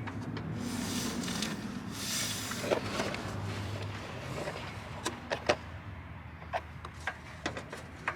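Rustling and scraping of the downstream O2 sensor's wiring harness and plug being fed up through the hole in the car's floor pan, then scattered light clicks and taps from handling it.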